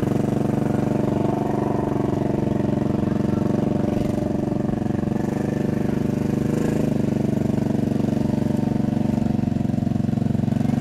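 ATV engine running steadily at low speed as the four-wheeler crawls through wet grass and mud.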